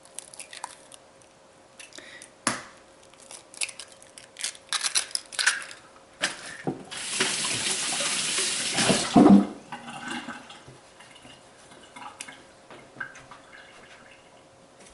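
Eggs being handled and cracked, with several sharp taps and clicks against the glass bowl. About seven seconds in, a kitchen tap runs steadily for about two seconds, followed by a few light clatters.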